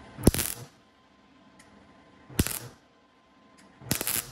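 MIG welder laying tack welds on a thin sheet-steel patch panel: three short crackling bursts of the arc, each under half a second and about a second and a half apart, each starting sharply.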